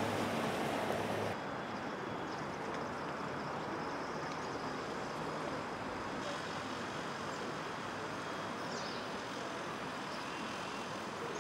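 Steady outdoor city ambience: an even wash of distant traffic noise, with no clear single event. Its character shifts abruptly about a second in and again about six seconds in, where the recording is cut.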